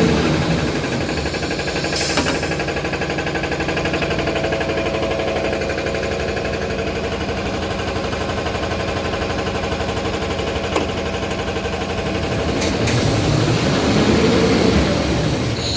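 Toilet-paper rewinding machine running steadily with a mechanical hum, a short hiss about two seconds in and a few faint clicks.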